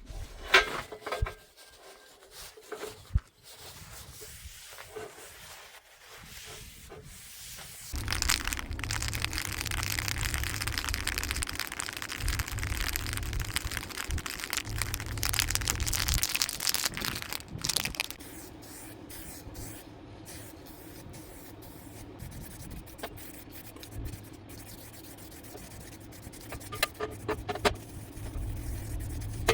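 Paint being sprayed: a loud, even hiss about 8 seconds in that lasts around nine seconds, after a few seconds of small knocks and clicks from handling.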